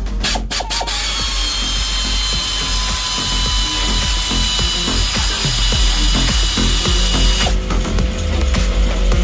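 Ratchet wrench clicking as it works the alternator mounting bolts, over background music. A denser mechanical noise with a steady high whine runs from about a second in and stops abruptly about seven and a half seconds in.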